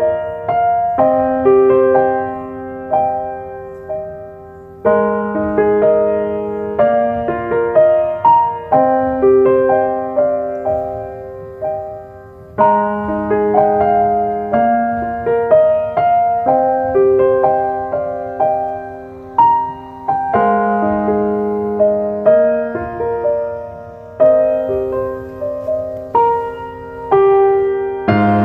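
Solo piano background music: a gentle, slow melody over chords, each note struck and fading away.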